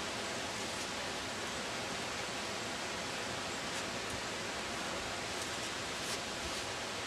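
Steady, even hiss of a snowstorm outdoors, with a few faint ticks.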